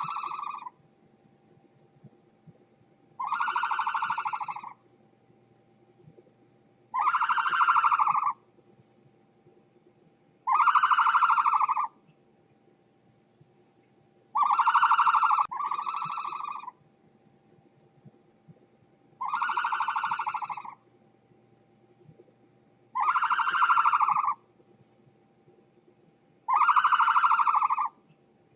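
Ostrich calls: a harsh, buzzy call about a second and a half long, repeated every three to four seconds, once as a quick double. A faint steady hum sits underneath.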